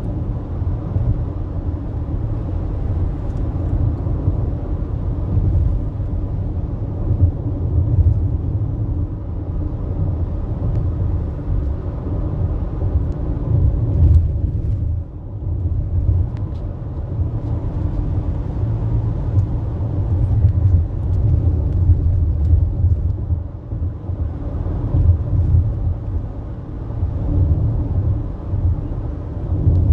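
A car's road and engine noise heard from inside the cabin while driving: a steady low rumble.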